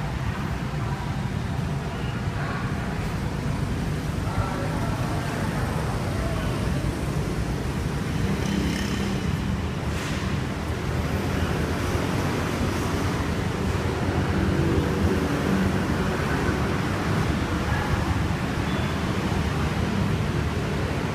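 Steady low rumble of motor vehicle noise, with no distinct events.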